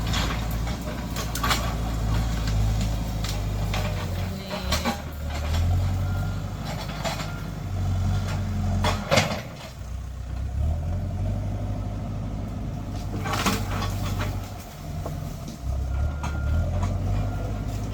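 Heavy land-clearing machine's diesel engine working under changing load, its pitch rising and falling every few seconds, with repeated sharp cracks and clanks as it pushes through trees and brush.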